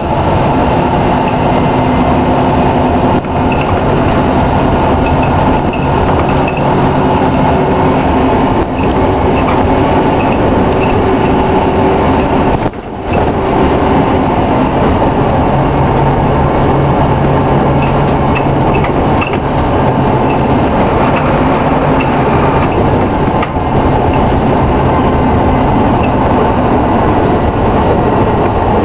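Scania K93CRB single-decker bus under way, heard from inside the saloon: the rear-mounted nine-litre diesel and transmission running steadily, changing pitch a couple of times, with a brief dip in the sound about thirteen seconds in.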